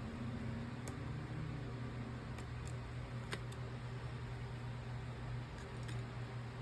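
A steady low hum from a bench machine, with a few faint, sharp clicks of small repair tools working inside an opened iPhone 15.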